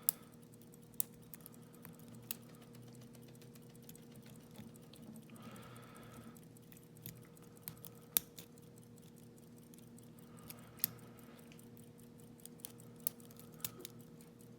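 Faint, irregular metallic clicks and ticks of lock-picking tools working the keyway of a Yale railroad switch padlock, a few sharper clicks among lighter scratching. The lock gives very little feedback, and the picker feels what may be wafers inside.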